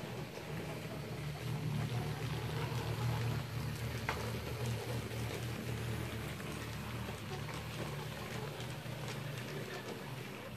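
TT-scale model freight train rolling past: a steady low motor hum that swells as the wagons pass closest, a few seconds in, with light clicking of the wheels over the track.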